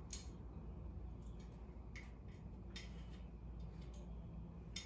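Faint scattered clicks and light taps of small metal parts being handled as a cable-holder bracket is fitted onto the studs of a sheet-metal side panel, over a low steady hum.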